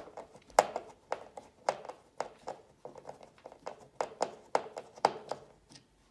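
Hand screwdriver slowly backing a mounting screw out of a plastic thermostat wall plate: a run of sharp clicks, about two to three a second, that stops near the end.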